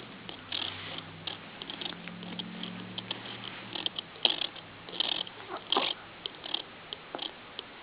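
Six-week-old baby's soft snuffles, grunts and little mouth noises, coming in short scattered bits, with a few fuller ones about four to six seconds in, over a faint steady low hum.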